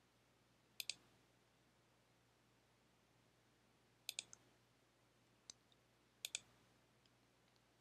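Faint computer mouse clicks: three clicks about a second, four seconds and six seconds in, each a quick pair of ticks, plus one lighter tick between the last two.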